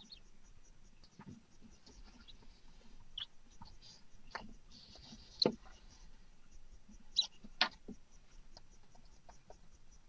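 Barn owl nest box: faint scratching and shuffling on the box litter as the adult owl shifts over its eggs and newly hatched owlet, with a few sharp clicks, the loudest about halfway through and two more soon after.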